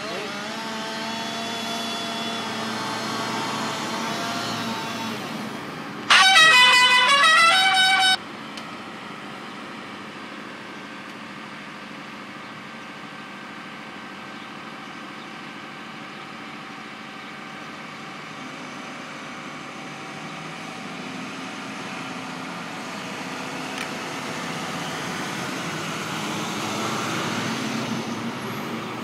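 A heavy engine runs steadily, its pitch rising over the first few seconds and again near the end. About six seconds in comes a loud two-second blast of a high tone that slides up, holds, then cuts off abruptly, the loudest sound here.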